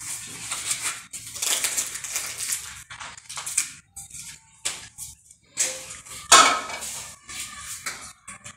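An aluminium ring cake pan and a plastic plate being handled and set down on a table: irregular clatters, scrapes and rustles. The loudest is a sharp knock about six and a half seconds in.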